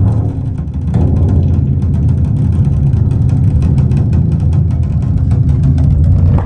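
Music with very deep, heavy bass played loud through Diatone DS-3000 closed-box loudspeakers and picked up in the room.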